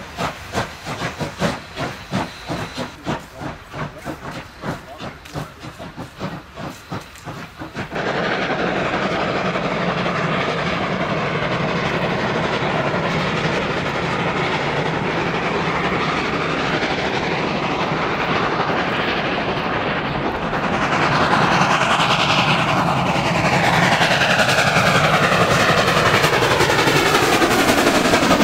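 Two steam locomotives double-heading a passenger train, working hard: steady exhaust chuffs at about two beats a second, then, from about eight seconds in, a continuous dense rush of exhaust and steam as the train comes closer, growing louder past about twenty seconds as it passes.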